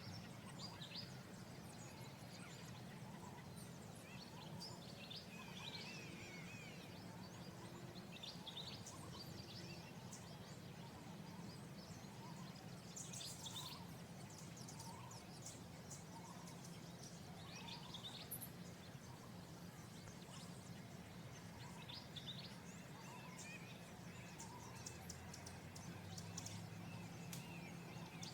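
Faint birds chirping sporadically over a steady low hum.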